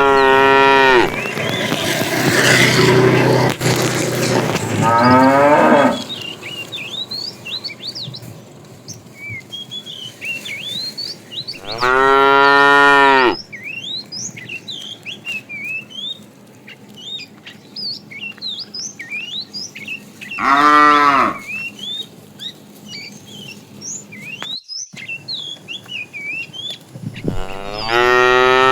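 Cattle mooing: about five separate loud calls spread through the stretch, one of them long and rough, the others short and pitched.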